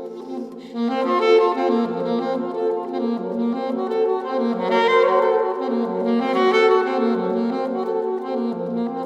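Saxophone improvising a line of held notes that change about once a second, over a steady sustained lower drone, sounding in the enclosed space of a freight elevator.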